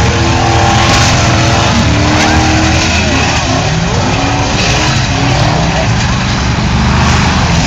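Several V8 demolition-derby cars revving hard, their engine notes rising and falling over one another, with tyres spinning in the mud. Crowd voices can be heard behind them.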